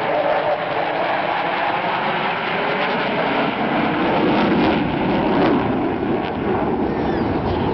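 Jet noise from a formation of four twin-engine Su-30 fighters flying overhead: a steady, loud rushing roar. It has a few tones that slowly fall in pitch near the start and swells slightly around the middle.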